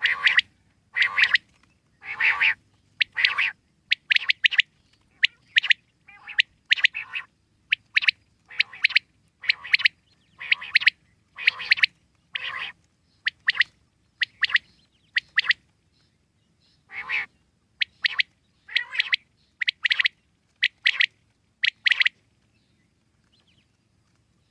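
Common quail calling: a long run of short, sharp calls, about two a second and often in pairs. The calls break off briefly and then resume, stopping for good near the end.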